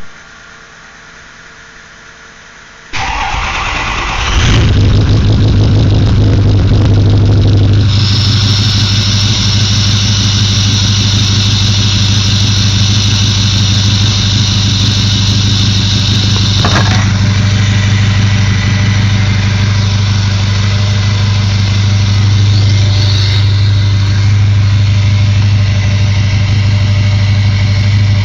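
2006 Ford F-250's 6.0-litre Power Stroke V8 diesel cold-starting: it cranks about three seconds in, catches a second or so later, and settles into a steady, loud idle. A high whine sits over the engine for several seconds after it catches, then eases. The owner attributes the truck's sound to a bad turbo.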